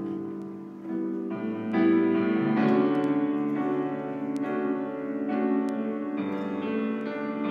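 Grand piano playing a chordal passage, each chord held and then changed every second or so. It is the instrumental lead-in to a congregational praise song.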